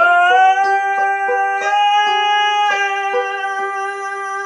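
A man's voice holds one long high sung note over a banjo picked underneath. The note slides up slightly at the start, then stays steady to the end.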